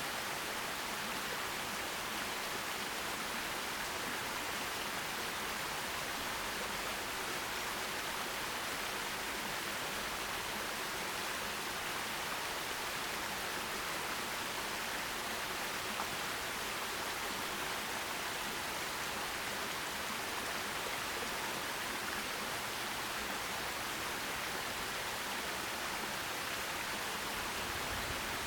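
Forest stream: water running over stones in a steady, even rush.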